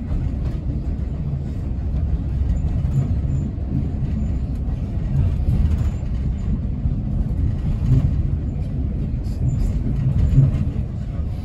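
Railway carriage running along the track with a steady low rumble, heard from on board a steam-hauled train.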